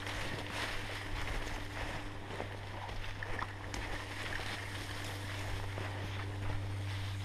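Footsteps and rustling through dry leaf litter on a slope, with scattered twig-like clicks, over a steady low hum.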